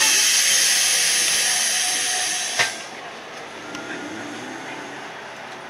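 Loud hiss of compressed air released from a trolleybus's pneumatic system, starting abruptly and cutting off with a click about two and a half seconds in; quieter running noise of the bus follows.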